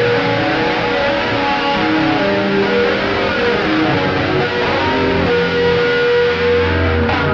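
Kramer Focus VT-211S electric guitar played through distortion, delay and reverb effects: a dense, washy layering of sustained notes, with a low note held from about five seconds in.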